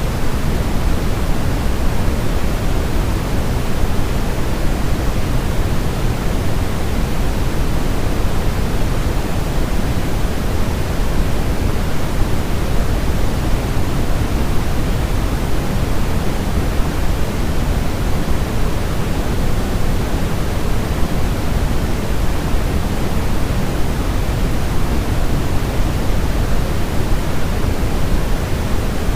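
Steady, unchanging white noise for baby sleep, fuller in the low end than a thin hiss and without any breaks or changes.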